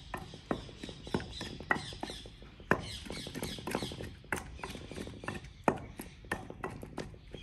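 Masala being pounded in a mortar with a pestle: repeated knocks, roughly two a second and unevenly spaced, two of them louder than the rest.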